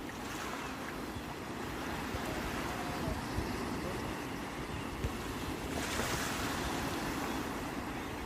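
Sea waves washing onto the shore in a steady rush, with one wave breaking into a louder hiss about six seconds in. Wind rumbles on the microphone underneath.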